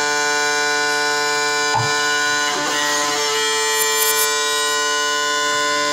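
Noise music: a steady, dense drone of many sustained tones held together, with a few brief clicks and scrapes over it.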